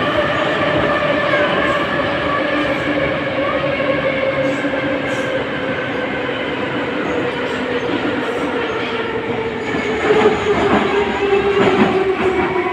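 Vagonmash 81-541 metro car heard from inside its cabin while running through a tunnel: steady wheel rumble and rail rattle under the whine of its traction motors. The whine slowly falls in pitch as the train slows. From about ten seconds in it grows louder, with sharper rattles and some wheel squeal.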